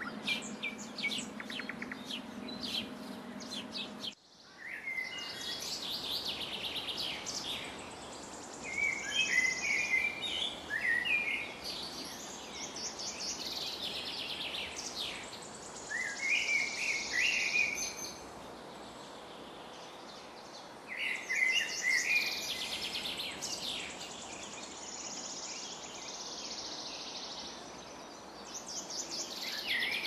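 Birds chirping and calling in repeated bursts of quick notes, every few seconds, over a steady high hiss. A low hum under the chirping stops abruptly about four seconds in.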